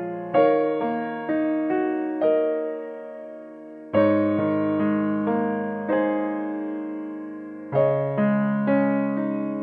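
Background piano music: slow notes and chords struck and left to ring and fade, with a longer held chord in the middle.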